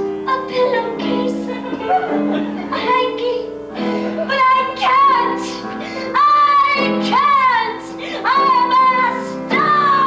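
A woman belting a musical-theatre song with piano accompaniment. Her phrases rise into held notes with vibrato, and a long note slides slowly downward near the end.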